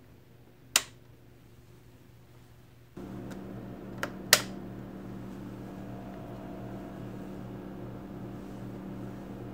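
A single sharp click, then a steady low hum sets in at about three seconds, with two more sharp clicks a third of a second apart about a second later.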